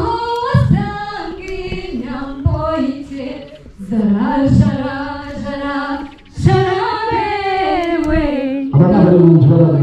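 Women's voices singing together in long, gliding phrases, with a few low thumps under the song. Near the end a steady low tone comes in and the sound gets louder.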